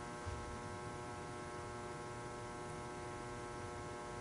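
Steady electrical hum with a faint hiss from the sound system, several steady tones held level throughout.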